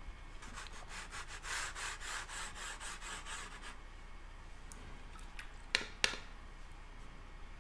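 A watercolor brush scrubbing quickly back and forth, several strokes a second, mixing a deeper blue-green paint. The scrubbing stops about halfway through, and two sharp taps follow soon after.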